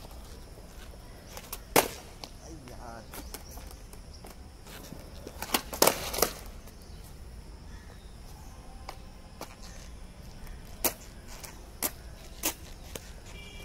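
Skateboard on smooth concrete: sharp wooden clacks of the tail popping and the board and wheels slapping down as a trick is tried. The loudest comes about two seconds in, a quick cluster of several follows near the middle, and a few single clacks come near the end.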